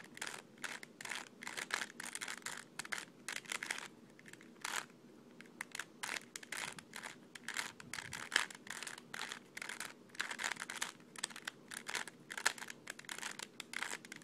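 3x3 Rubik's cube being scrambled by hand: quick, irregular runs of plastic layers turning and clacking, with a brief pause about four to five seconds in.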